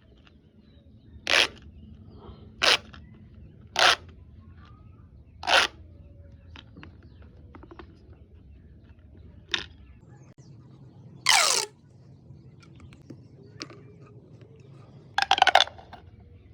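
A series of short, sharp pops made for ASMR. Four loud pops come about a second or so apart, then after a pause a sharper one, a longer pop with a falling tone, and near the end a quick rattling run of pops.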